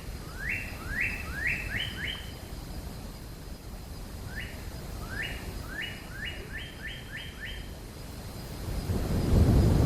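Two runs of short bird-like chirps, each sweeping quickly upward and repeated several times a few tenths of a second apart. A low rumble swells in near the end.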